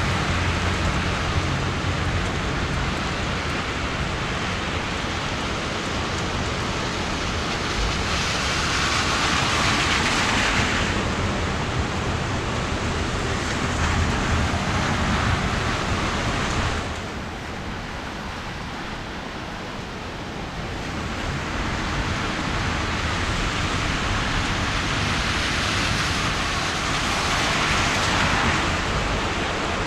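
Heavy rain pouring down, a steady rushing hiss that swells louder twice and dips for a few seconds in the middle.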